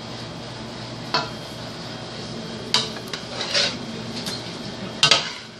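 A bowl scooping cooked rice, scraping and knocking against a metal skillet and a metal steam-table pan: a few separate clatters, the loudest near the end.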